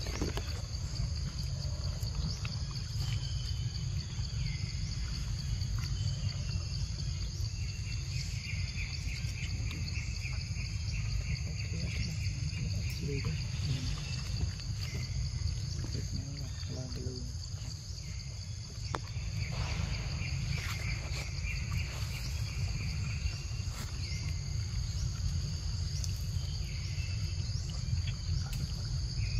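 Forest insects chorusing: a steady high buzz, with pulsing chirps that come and go, over a low rumble.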